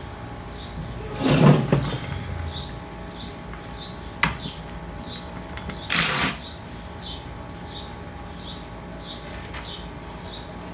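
Knocks and rattles of pump parts being handled during a hydraulic pump teardown: a thump about a second and a half in, a sharp click a little after four seconds, and a rattle around six seconds. A faint high chirp repeats every half second or so throughout.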